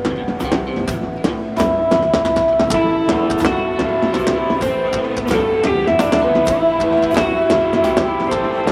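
Live rock band playing: a drum kit keeps a steady beat under held, melodic electric guitar notes, the band getting louder about one and a half seconds in.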